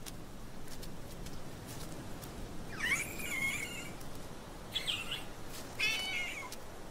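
Infant Yunnan snub-nosed monkey calling: three short, high-pitched cries, about three, five and six seconds in, the first rising and then held, the last wavering.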